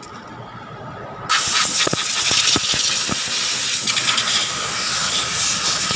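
A loud, steady hiss sets in suddenly about a second in and carries on, with a few light metallic clicks over it from the timing chain links being handled.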